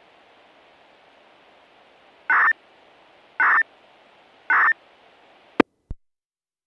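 Steady radio hiss from an open analog disaster-prevention radio channel picked up on a scanner receiver, with three short loud beeps about a second apart. A sharp click and a fainter second click follow, then the sound cuts off to silence.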